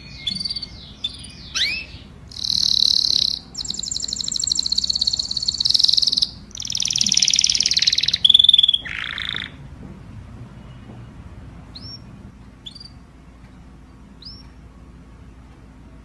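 Domestic canary singing: fast high trills and rolling phrases for about nine and a half seconds, then three short single chirps a second or so apart.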